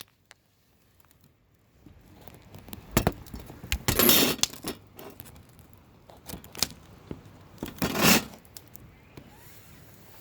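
Campfire crackling, with scattered sharp pops and two louder bursts of crackle about four and eight seconds in.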